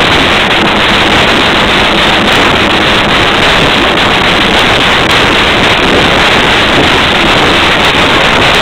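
Taiko drums played hard and continuously. The drumming is loud enough to overload the recording into a steady, distorted roar in which the single strokes barely stand out.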